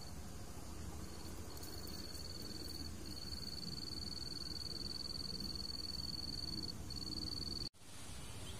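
An insect's steady, high-pitched trill, broken by a few short pauses, over low outdoor background noise; it cuts off suddenly near the end.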